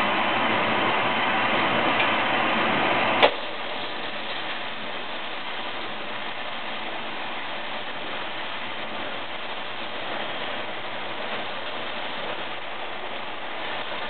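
Tire truing machine running, turning a truck tire against its cutter to shave down a flat spot. A steady mechanical running noise, with a sharp click about three seconds in, after which it runs on more quietly.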